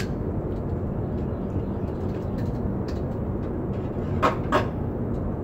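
Metal rotisserie basket and spit being seated into a George Foreman rotisserie grill: a few light clicks, then two sharp metallic clacks close together about a second before the end. A steady low hum runs underneath.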